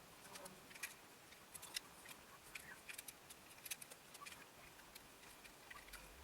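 Faint, irregular clicking and light clatter of plastic LEGO bricks being handled and pressed together, several small clicks a second.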